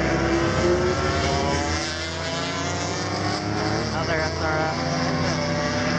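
Several racing motorcycles passing, their engine notes overlapping and rising and falling in pitch as they slow and pick up speed, with a quick rise-and-fall of pitch about four seconds in.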